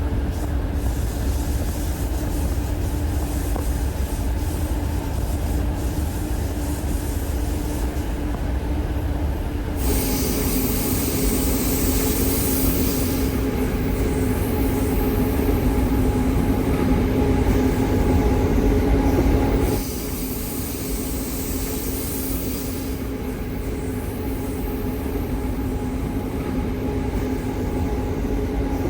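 Passenger train running along the track: a steady low rumble with a constant hum. A high hiss rises over it about ten seconds in and drops away near twenty seconds.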